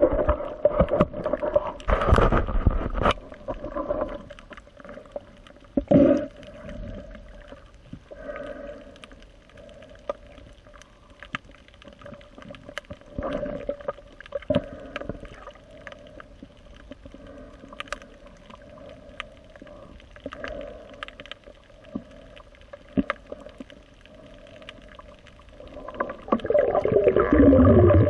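Underwater sound recorded by a camera submerged with a swimming diver: muffled water movement with scattered clicks and knocks, and a louder rush of gurgling water near the end.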